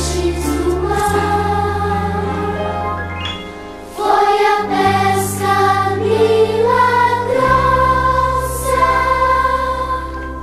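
Religious choral music: a choir singing over sustained low accompaniment notes that change every couple of seconds, briefly softer just before the fourth second.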